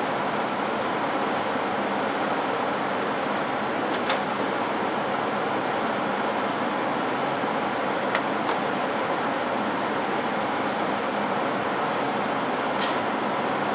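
Steady rushing airflow from a ventilated lab hood's blower fan, with a few light clicks about four, eight and thirteen seconds in.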